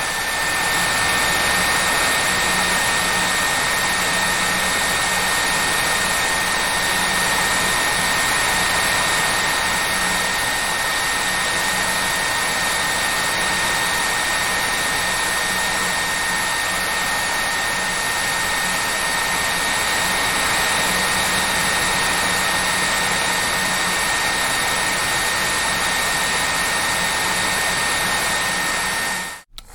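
Hair dryer running steadily: an even rush of blown air with a high, steady motor whine. It cuts out for a moment just before the end and starts again, the whine climbing back up to pitch.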